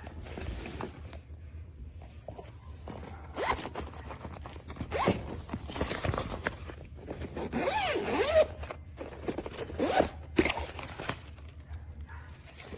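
Zipper on a suitcase or travel backpack being pulled open and shut in several quick strokes.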